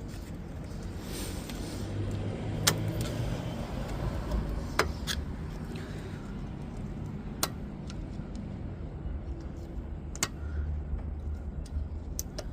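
About six sharp metallic taps at irregular intervals: a hammer striking a punch against the brake caliper's pad retaining pins, which are stuck fast, probably rusted in.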